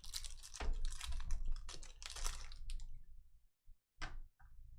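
Trading cards being handled and flipped through by hand: a quick run of short rustles and clicks for about three seconds, then a single click near the end.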